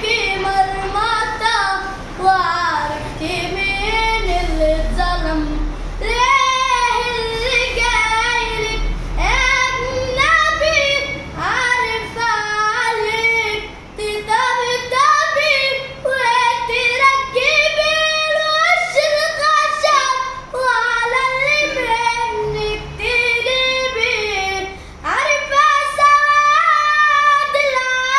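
A child singing solo in a high voice, long phrases with sliding, ornamented turns and short breaks for breath between them.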